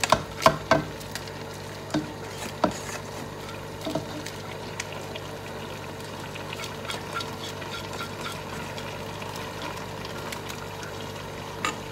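A thick mince-and-vegetable sauce being scraped out of a pan into a pot of noodles: a cooking utensil knocks and scrapes against the pan several times in the first few seconds, then lighter scraping ticks, over a steady background hum.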